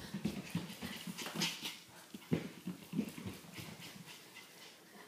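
Running footsteps on a hardwood floor: a person's irregular thuds mixed with the quicker, lighter steps of a Coton de Tulear puppy's paws.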